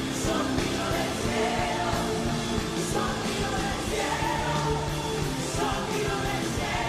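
Live Christian worship rock band playing, with singing over drums, cymbals and guitars.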